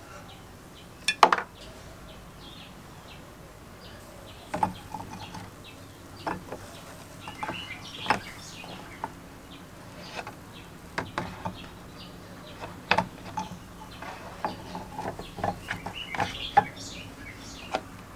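Small rusty steel vise parts clinking and knocking as they are dropped into a plastic tub of rust remover and against each other. A sharp metallic clink about a second in is the loudest, followed by a run of smaller taps and knocks.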